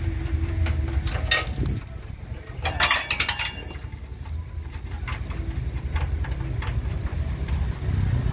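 Metal clinking and knocking of tools and bolts while a diesel engine's mounting is bolted down. There is a single knock about a second in and a cluster of bright, ringing metallic clinks about three seconds in, over a steady low rumble.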